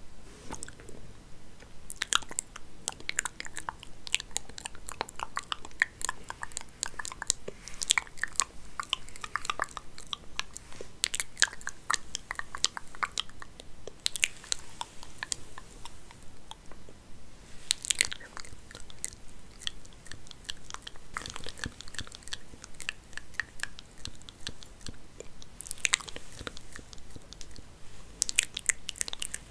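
Wig hair being combed and handled close to the microphone, giving dense crackling and scratching in irregular bursts.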